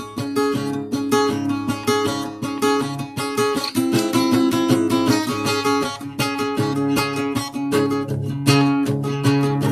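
A guitar playing chords, with many picked or strummed strokes a second over ringing notes.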